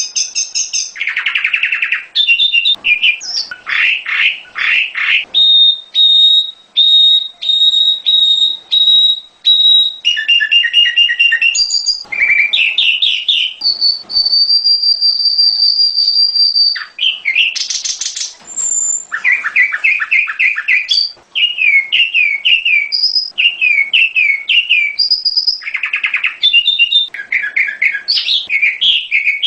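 Prenjak gunung (mountain prinia) song played as a lure recording: continuous, varied high phrases of rapid chirps and trills, with one long steady whistle about midway.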